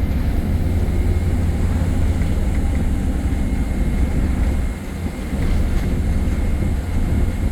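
MAN single-decker bus heard from on board while under way: a steady low rumble with a thin, steady high whine above it. The sound eases briefly about five seconds in, then picks up again.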